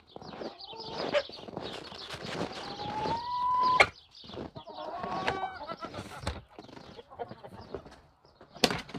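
Chickens clucking and calling in a coop, including one drawn-out rising call about three seconds in. Under the calls are crunching footsteps in snow and the knocks and clatter of plastic buckets and a feeder lid being handled.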